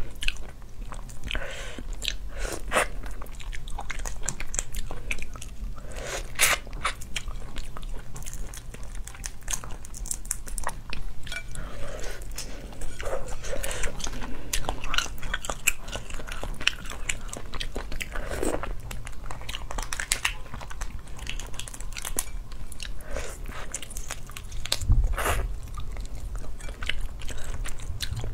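Close-up crackling and cracking of spicy crayfish shells being pulled apart by hand, with chewing in between.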